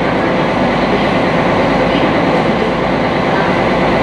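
Sightseeing boat's engine running steadily under way, a dense even drone mixed with hull and water noise.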